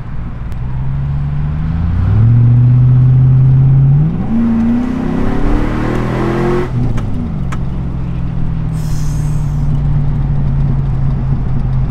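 2006 GMC Sierra 1500's V8 exhaust through a Flowmaster Super 10 muffler, heard inside the cab as the truck accelerates hard: the engine note swells about two seconds in, then climbs steeply in pitch. It drops sharply as the throttle is lifted about seven seconds in, then settles into a steady cruising tone.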